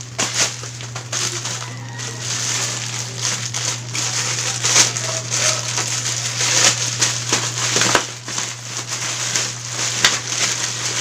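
Bubble wrap and plastic packaging crinkled and pulled apart by hand, a continuous run of crackles and sharp clicks.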